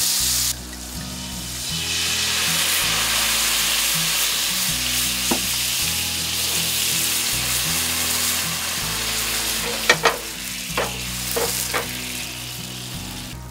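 Lemon juice and white wine hissing and sizzling in a hot cast-iron skillet as the pan is deglazed. The hiss dips about half a second in, swells again and slowly dies down, with a few light knocks near the end.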